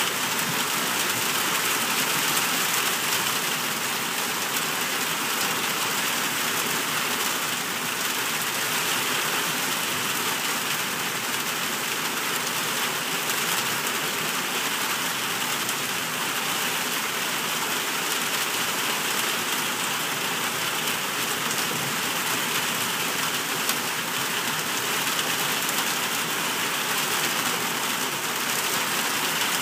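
Heavy rain pouring down: a steady, even hiss of a downpour striking wet pavement and ground.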